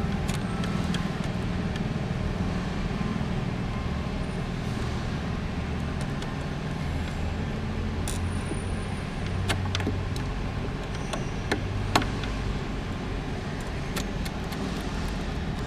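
A few sharp metallic clicks and taps as a 7 mm wrench and fingers work the ground-wire nuts inside a vacuum's metal housing, the loudest about twelve seconds in. A steady low rumble runs underneath.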